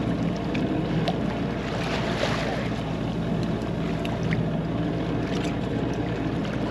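Wind and sea noise aboard a sailboat under way: a steady rush of wind and water over a low, even hum, with a few light clicks and knocks.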